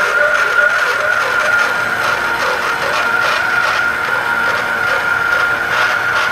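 Portable pipe end-prep machine running steadily, its motor whining at one constant pitch as the cutter trims the end of a 6-inch schedule 80 carbon steel pipe, with a steady grinding rasp of the cut.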